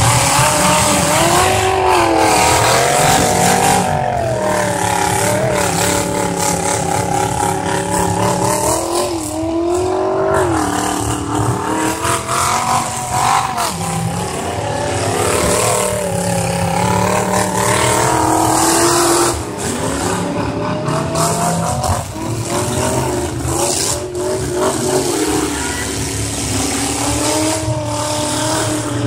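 Several demolition-derby cars' V8 engines revving hard, over and over, their pitch climbing and dropping as they accelerate and back up. Tyres spin, and there are a few sharp knocks.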